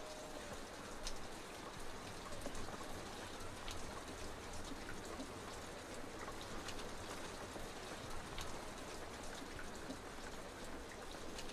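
Faint steady rain, with scattered drops ticking.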